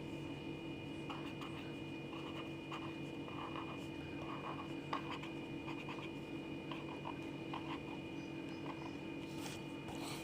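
Felt-tip marker drawing on paper: short, separate scratchy strokes, several each second, over a steady faint hum.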